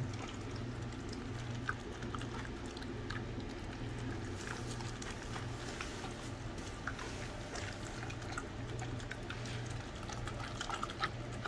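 A dog eating moist food from a bowl: wet chewing and smacking with irregular small clicks, over a steady low hum.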